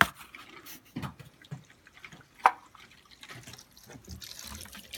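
Water dripping from a water heater's plumbing as the lines are drained of pressure, with one clear, falling plink about two and a half seconds in and a few faint knocks.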